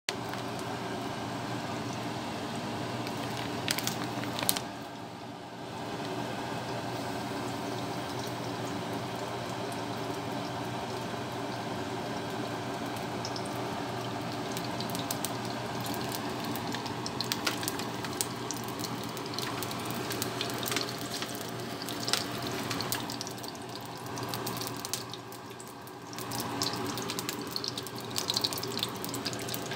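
Cooking oil heating in a wok over a gas burner: a steady hiss with a low hum, and small crackles and pops from the oil that grow more frequent through the second half.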